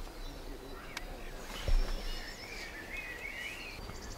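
Birds chirping and warbling over open-air background noise, with a single dull low thump a little under two seconds in.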